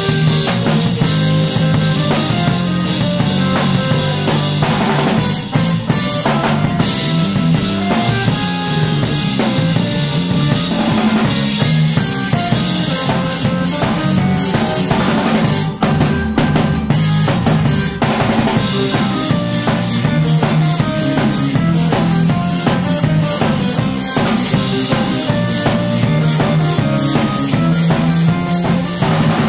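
Live drums and bass guitar playing together: a drum kit with Meinl cymbals is played hard and densely, with kick, snare and cymbal hits over held low bass notes.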